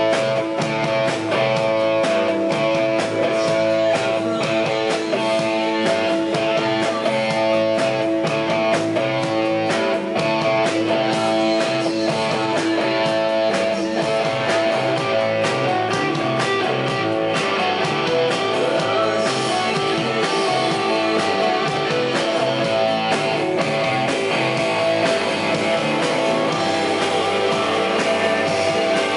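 Live rock band playing loud and steady, electric guitar over a drum kit.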